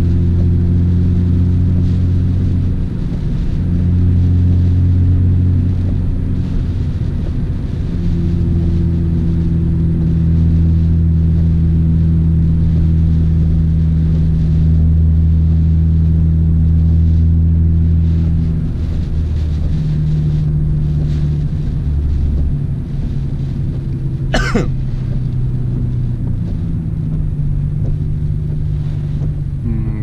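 Nissan Skyline GT-R R32's twin-turbo straight-six droning steadily inside the cabin while driving, its note shifting several times as the car changes speed, over a hiss from the rain-soaked road. One short sharp click sounds near the end.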